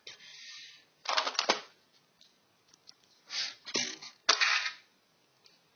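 Metal tools and loose hardware rattling and clinking in a toolbox as it is rummaged through, in several short bursts of clatter with pauses between them.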